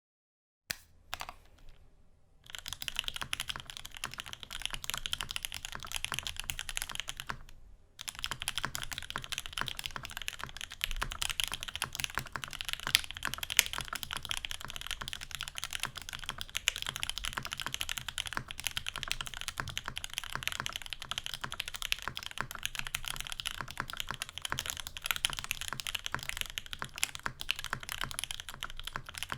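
Fast, continuous typing on a Mode Eighty tenkeyless mechanical keyboard with lubed Gateron Ink and Milky Black switches on an aluminium plate. A few single keystrokes come first, then steady rapid typing with a short pause about eight seconds in.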